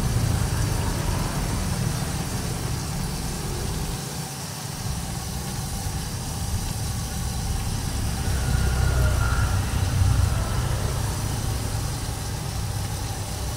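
Battered gourami pieces frying in a wok of hot oil, sizzling steadily over a low continuous rumble.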